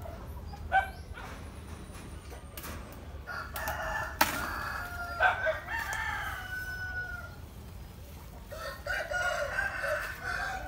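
Roosters crowing, one long crow in the middle and another near the end, with two sharp clicks about a second and about four seconds in.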